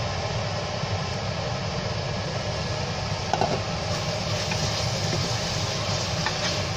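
Steady hiss and low hum from a stainless steel pot of onions, red peppers and spices sautéing on the hob, with a clink about three and a half seconds in as the glass lid comes off, then a wooden spoon stirring the mixture.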